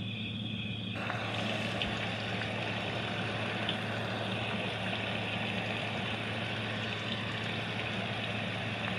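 Radio giving off a steady static hiss over a low hum; the hiss comes in abruptly about a second in.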